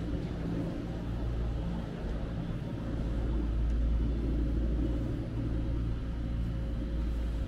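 Steady low rumble and hum of an aerial ropeway station's machinery running, the cable wheels turning the haul rope. It swells a little about three seconds in.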